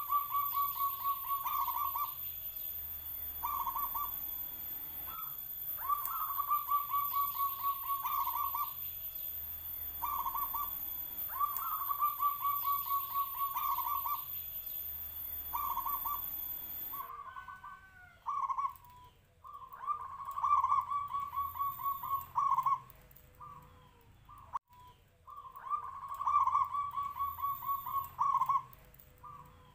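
Zebra dove (perkutut) cooing, a big-voiced local bird: short notes followed by a rolling phrase of quick pulsed coos about a second and a half long, repeated about every three seconds. A steady high background hiss stops abruptly about halfway through while the cooing goes on.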